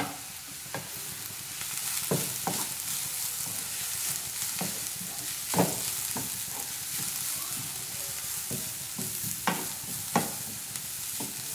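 Shredded cabbage and grated carrot sizzling in oil in a nonstick pan on high flame, stirred with a wooden spatula that knocks lightly against the pan several times.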